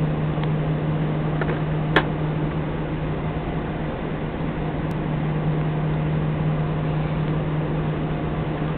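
Airbus A320 jet engines idling, heard inside the cabin over the wing: a steady hum with a constant low drone. A single sharp click about two seconds in.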